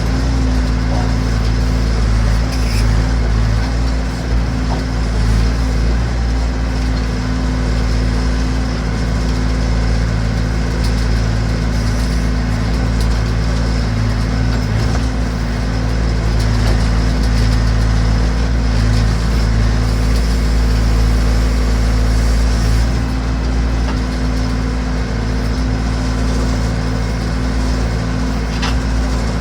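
Massey Ferguson backhoe's engine running steadily at a constant speed, with a single faint click near the end.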